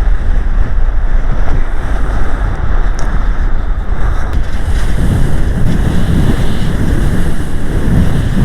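Strong gusting wind buffeting the microphone: a loud, steady rumble and rush with no other clear sound, from winds of about 40 mph with gusts near 65.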